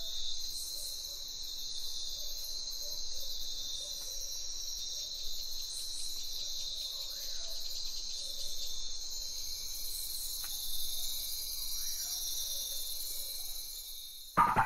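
Steady, high-pitched chirring like a chorus of crickets, pulsing rapidly, with a few faint sliding calls below it. A short, louder sound comes in just before the end.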